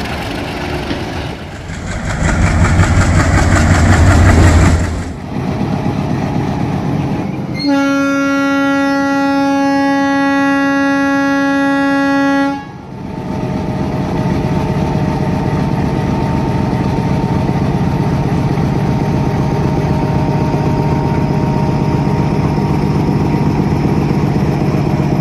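Bangladeshi broad gauge diesel locomotives. A train rumbles past loudly for a few seconds. Then a single long air-horn blast sounds steadily for about five seconds and cuts off sharply. After that the Bombardier locomotive BR-6311 idles steadily with a faint whine.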